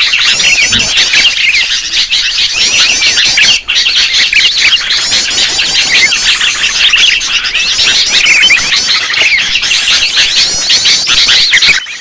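Many sooty-headed bulbuls (kutilang) chattering and calling at once in a dense, noisy chorus of quick overlapping chirps, a recording used as a bird lure. It dips for a moment about three and a half seconds in.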